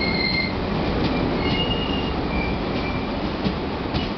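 Indian Railways passenger coaches rolling slowly past on arrival: a steady heavy rumble of wheels on rail, with several short high-pitched wheel squeals and a few sharp clicks over the rail joints.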